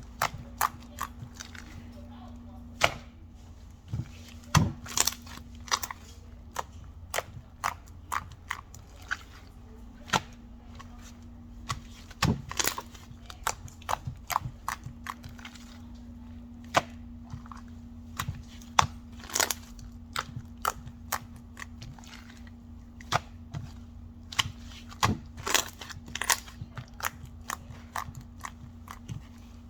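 Irregular sharp clicks and taps, a few of them louder snaps, over a steady low hum.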